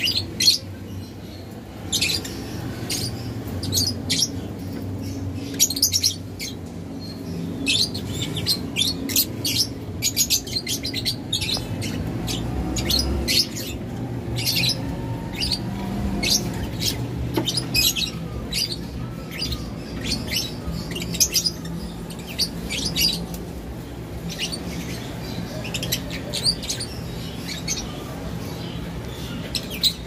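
Lovebirds chirping: a rapid string of short, sharp high chirps, several each second, over a low steady hum.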